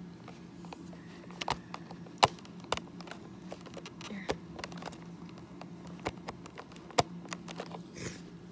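Plastic toy packaging handled to free a toy dinosaur from its box: irregular clicks and crackles, with sharp snaps about two seconds in and near the seventh second, over a steady low hum.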